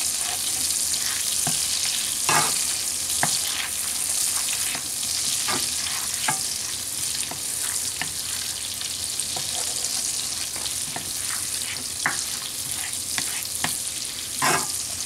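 Chopped garlic, red pepper flakes and parsley sizzling in olive oil and melted butter in a frying pan, a steady high hiss. A spatula scrapes and knocks against the pan now and then, most sharply about two seconds in and near the end.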